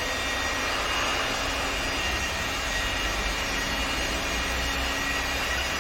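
Steady machine noise from a CNC wood lathe workshop: an even rushing drone, with a faint low hum that comes and goes twice.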